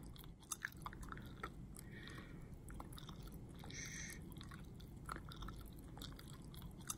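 Quiet room tone through a headset mic, with small mouth clicks and a short, soft "shh" shushing hiss about four seconds in, after a fainter one about two seconds in.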